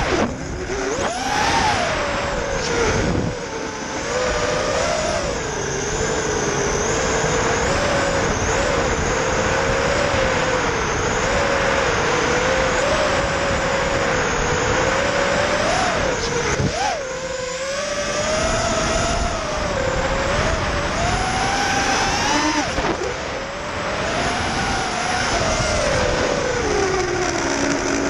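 QAV-R 220 racing quadcopter's brushless motors and propellers whining under a rush of air noise, the pitch rising and falling with throttle, with a few short drops where the throttle is chopped.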